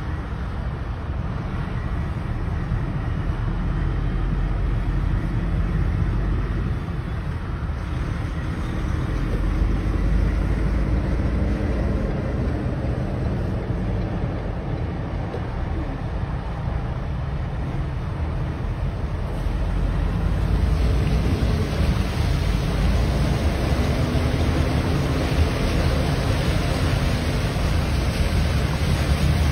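Steady low rumble and hiss of a car driving along a flooded road, heard from inside the car. The hiss grows louder about two-thirds of the way through.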